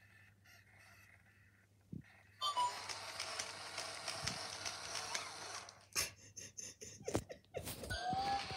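Two robot toy dogs, a Sony Aibo ERS-1000 and a Hasbro Mio Pup, making electronic sounds: a few soft beeps at first, then a louder, noisier electronic sound lasting about three seconds, then sharp clicks and short chirps near the end.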